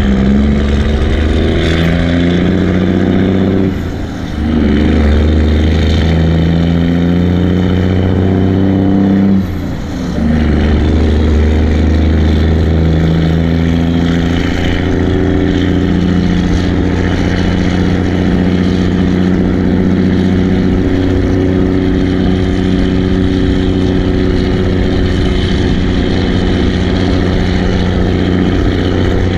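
Kenworth W900A semi truck's diesel engine pulling through the gears: it rises in pitch, dips briefly at gear changes about four and ten seconds in, then runs steady.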